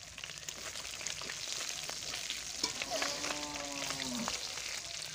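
Fish pieces sizzling steadily in hot refined oil in a metal karai, with small clicks and scrapes from a metal spatula turning them. A faint drawn-out tone rises and falls in the middle.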